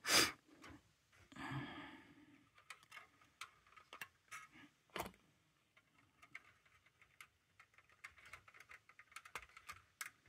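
Faint small clicks and taps of hard plastic model-kit parts being handled as a plastic sail is fitted onto the ship model's mast, irregular throughout, with a sharper click right at the start and another about five seconds in.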